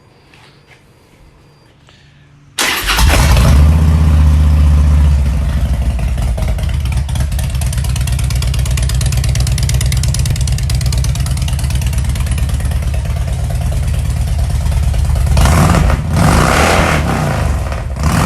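2007 Harley-Davidson Street Glide's Twin Cam 96 V-twin, breathing through SVT Jackhammer exhausts, starts about two and a half seconds in and idles loudly. There are throttle blips near the end.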